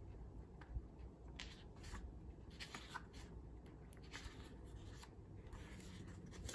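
Faint rustling and soft ticks of thin printed paper as a sheet of a pattern-paper pad is lifted and turned over by hand.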